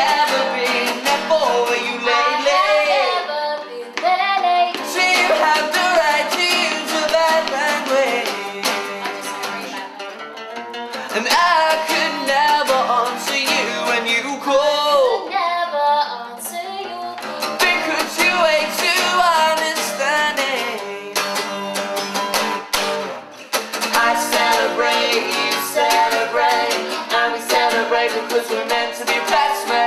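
Acoustic guitar strummed as accompaniment to singing: a man's voice leads and a woman's voice joins in at times.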